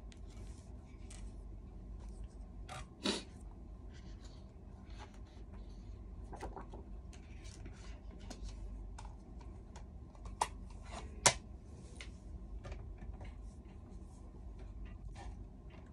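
Paper rustling as a sheet is handled and the pages of an instruction booklet are turned, with a few sharp clicks, the loudest about eleven seconds in.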